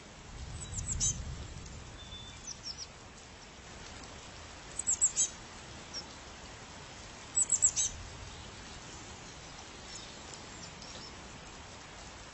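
A small bird calling in short, high chirps. They come in quick runs of four or five notes about five seconds in and again at seven and a half, with fainter single calls between. A brief low rumble sounds near the start.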